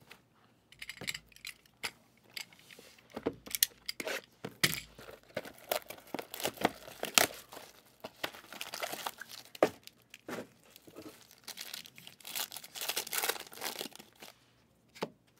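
Plastic wrapping on Panini Obsidian football card boxes and a foil card pack being torn open and crinkled by hand: a run of irregular crackles and rips that dies away shortly before the end.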